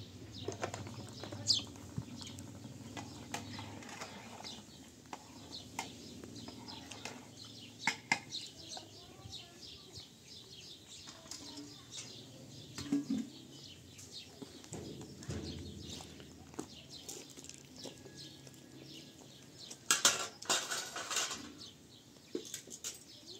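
Dishes and utensils clinking and knocking in a run of irregular clicks, busiest about twenty seconds in.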